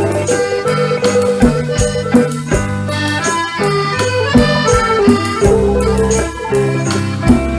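Instrumental passage of a 1960s-style Khmer pop song: a held reedy keyboard melody over bass and a steady drum beat of about two beats a second.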